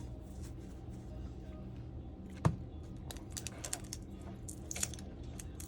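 Handling noises of a tablet being worked on at a bench: one sharp tap about two and a half seconds in, then a run of light clicks and ticks, over a steady low hum.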